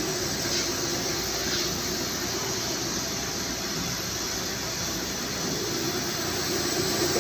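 Steady, even rushing noise with a faint low hum: the background noise of a mechanical plant room.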